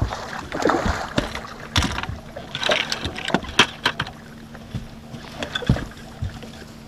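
A large hooked musky thrashing at the side of the boat: water splashing in several bursts, mixed with sharp knocks, over a faint steady low hum.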